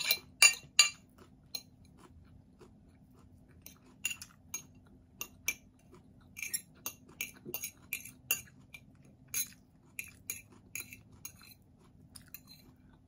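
Metal fork clinking and tapping against a ceramic plate while picking up shredded green mango, with chewing between the clinks. The loudest clinks come in the first second, then lighter, irregular taps follow.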